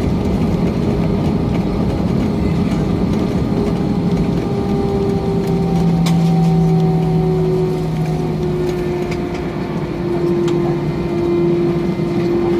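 Airbus A320 cabin noise just after touchdown: a loud, steady rumble of jet engines and rolling wheels. Several engine tones sink slowly in pitch as the engines wind down, with a few light rattles.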